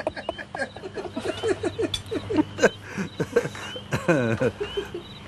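Several people laughing in short, falling bursts, a girl's giggling among them. Faint short chirps recur about once a second behind it.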